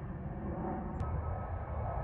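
Jet airliner engine noise, a steady low rumble from overhead. About a second in, a sharp click marks a cut to an Airbus A320neo-family airliner, whose engines add a steady high whine over the rumble.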